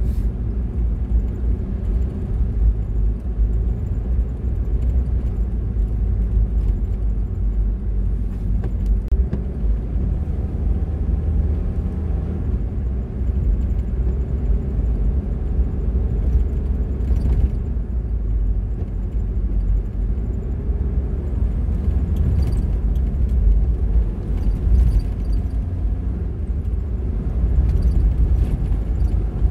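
Steady low rumble of a car being driven along a road: engine and tyre noise, with the engine pitch drifting slightly.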